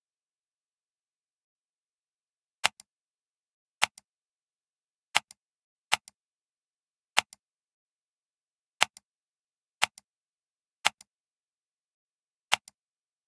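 Computer mouse button clicks, nine in all at irregular gaps of about one to one and a half seconds, each a sharp click followed a moment later by a fainter release click.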